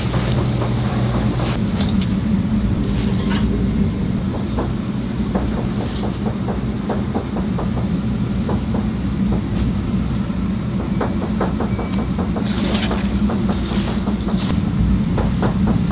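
A steady low mechanical hum under the crackle, rustle and squish of napa cabbage leaves and red chili seasoning paste being tossed and mixed by gloved hands for kimchi. Two short high beeps come a little past the middle.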